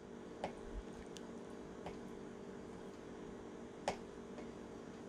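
A serrated kitchen knife cutting boiled potato into small cubes, its blade tapping the cutting board in a few separate light clicks, the clearest nearly four seconds in. A faint steady hum lies underneath.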